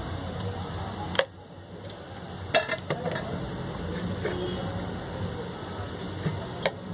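Steady low hum and hiss, broken by a few sharp clicks: one about a second in, a couple just after two and a half seconds, and two more near the end.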